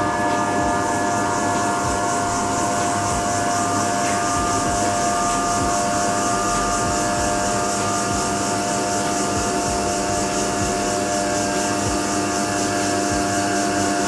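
Electric motor and hydraulic pump of a two-post car lift running steadily while it raises the car.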